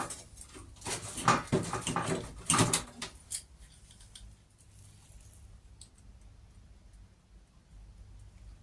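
Sheet steel clinking and scraping in a string of sharp, irregular strokes for about three seconds. Then it goes quiet, leaving a faint low hum and a few light ticks.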